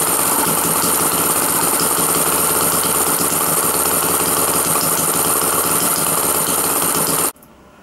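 Scratch-built single-cylinder two-stroke opposed-piston model petrol engine with spark ignition running steadily. The sound cuts off suddenly near the end.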